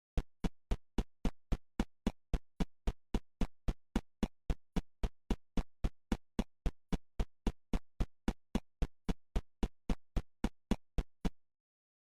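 A perfectly even train of sharp clicks, like a metronome or click track, about four a second, which stops abruptly near the end.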